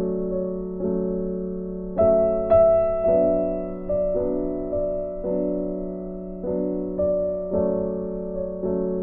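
Background piano music: slow, soft chords, a new one struck and left to ring about every second.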